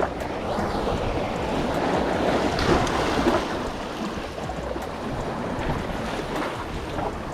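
Waves washing in at a jetty, with wind rumbling on the microphone; the wash swells louder about two to three seconds in.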